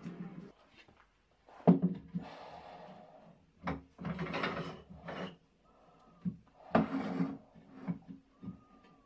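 Handling noise on a wood lathe that is switched off: sharp knocks and clunks of metal parts as the bowl is fitted in the chuck and the tool rest is set and clamped, with a few scraping, sliding stretches about a second long each.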